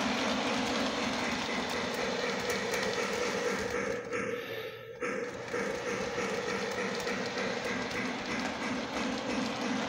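Model train set running on its track, a steady mechanical whir with a low hum. About halfway through it drops and thins out for about a second, then comes back suddenly.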